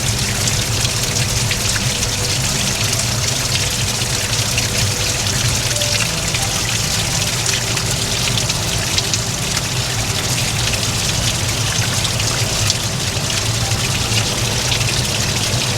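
Running water, a stream or runoff splashing and gurgling steadily, swollen after heavy rain.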